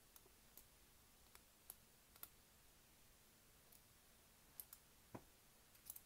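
Faint, irregular metallic clicks of a hook pick working the pin tumblers of an old-style Federal Super padlock's brass cylinder under a tension wrench. This is single-pin picking with the lock still shut.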